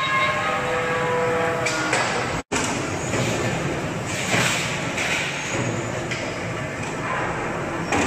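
Steel sheet rubbing and ringing in a plate-rolling machine as it is rolled into a cylinder, over steady workshop machine noise. A louder scrape comes about four seconds in, as the rolled cylinder is slid off the roller. The sound breaks off for an instant at an edit.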